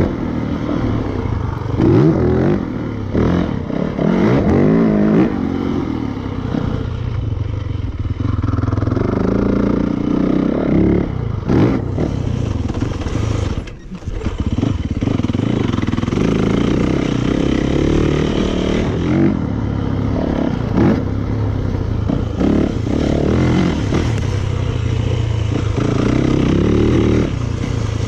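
2019 Yamaha YZ450FX's 450cc single-cylinder four-stroke engine revving up and down as the dirt bike is ridden around a motocross track. The engine sound drops away briefly about halfway through, as the throttle comes off, then picks back up.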